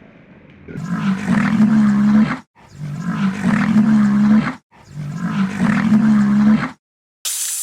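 A large animal's deep call, repeated three times as three near-identical calls of about two seconds each with short gaps between them. A hiss starts just before the end.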